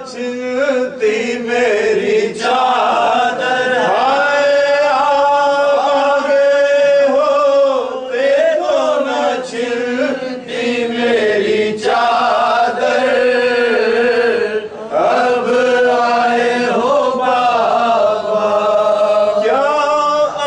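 A man chanting a marsiya, the Urdu elegy of Muharram mourning, in long drawn-out melodic lines with held notes and short breaks between phrases.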